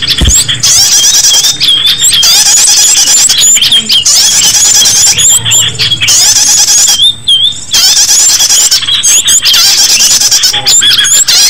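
Shrill small-bird lure call (suara pikat): many overlapping high chirps and squeals, with brief pauses every second or two, played loudly to draw small birds in.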